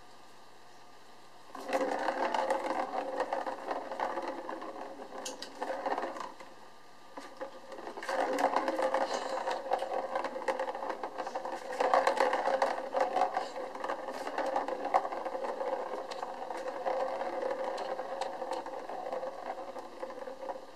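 Plastic ball rolling round the circular track of a cat's ball-track toy as a kitten bats it, a continuous rolling rattle with a steady hum. It starts about a second and a half in, drops away briefly around the middle, and resumes.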